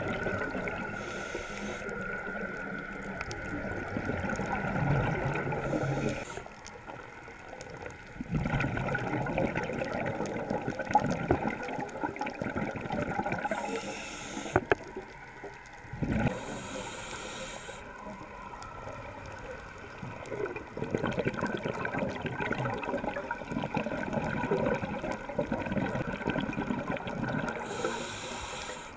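Scuba regulator breathing underwater: long bursts of exhaled bubbles gurgling, broken every several seconds by short hissing inhalations, over a faint steady tone.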